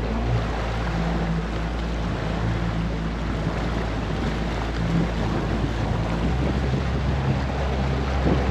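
Tour boat's motor running steadily with a low hum, with wind on the microphone and water noise.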